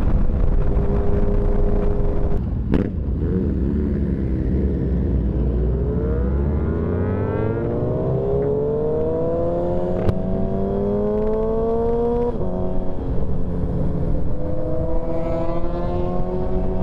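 Motorcycle engine under way, heard from the bike over a low rumble of wind: the pitch dips about two and a half seconds in, climbs steadily as the bike accelerates, drops at a gear change about twelve seconds in, then climbs again.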